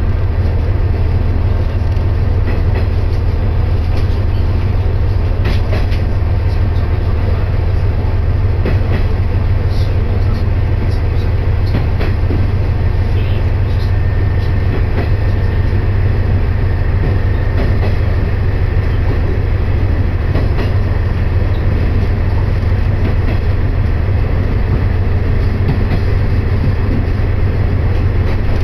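Cabin noise of a moving diesel railcar: a steady low running hum from the engine and wheels on the rails, with a few faint clicks and rattles.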